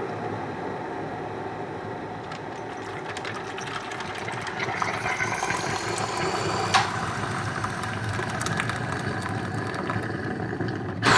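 Breville VKJ367 Hot Cup dispenser boiling water with a steady rumble. About halfway through, hot water starts pouring from the spout into a ceramic mug, with a faint rising pitch as the mug fills. There is a sharp click a little later, and a loud click just before the end, after which the sound stops.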